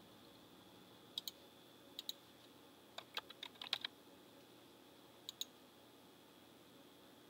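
Faint computer mouse clicks and a quick run of keyboard typing. Single clicks come about one and two seconds in, a burst of five or so keystrokes follows around three to four seconds in as a number is entered, and another click comes past five seconds.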